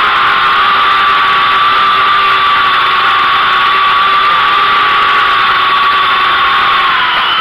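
Syma X8W quadcopter's four motors and propellers whining steadily at a high pitch as it descends, picked up close by its onboard camera; the pitch sags a little near the end.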